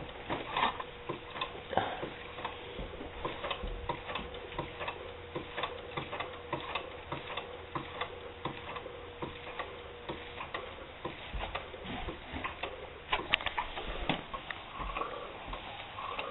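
Homemade steam engine built from a weed eater's two-stroke motor, running on steam and turning a bicycle wheel: a fast, uneven clicking and ticking. A faint steady tone underneath stops about ten seconds in.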